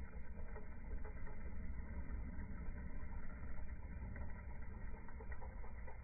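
Steady low background rumble of outdoor noise, with no distinct calls or events standing out.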